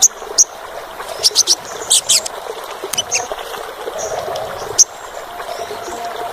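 Olive-backed sunbird calling: short, shrill, high chirps, some single and some in quick runs of three or four notes, over a steady low hiss.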